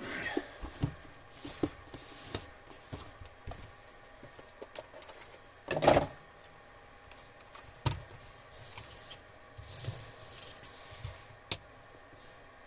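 Hands handling small cardboard boxes and a digital pocket scale on a rubber work mat: scattered light clicks, taps and rustles, with one louder clatter about halfway through.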